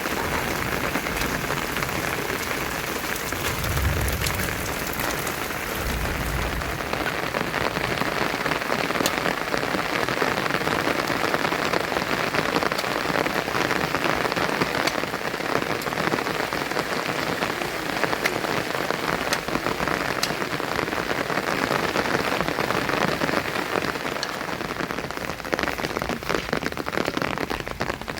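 Steady heavy rain falling, with scattered individual drops ticking sharply. Two brief low rumbles come about four and six seconds in.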